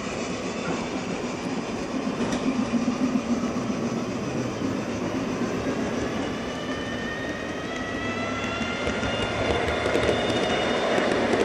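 Gauge 1 model trains rolling over the track, a steady rumble of wheels on rail. From about halfway a rising whine joins in and the sound grows louder toward the end as a second train runs in.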